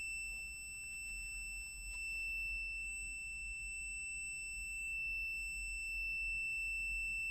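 Kyoritsu KEW MATE 2012RA multimeter's continuity buzzer sounding one unbroken high-pitched beep, its test probes touching so the circuit reads as continuous (near-zero ohms).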